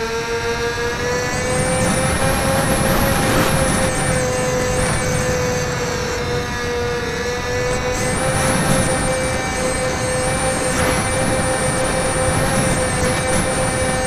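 HobbyZone Firebird Delta Ray RC plane's electric motor and propeller running in flight, a steady whine at a near-constant pitch with a few small dips, heard from a camera on board. A higher whine wavers in from about a second and a half in, over a rush of wind noise.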